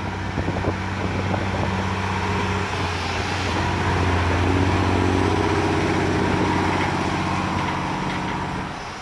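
Diesel engine of a toter truck pulling a mobile home, running steadily. It grows louder as the truck passes close about four seconds in, then fades as it pulls away near the end.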